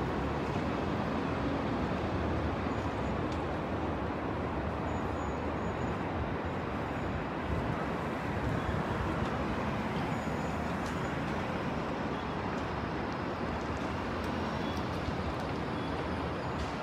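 Steady city street traffic noise: an even wash of cars and other vehicles running past, with a few faint ticks and clicks.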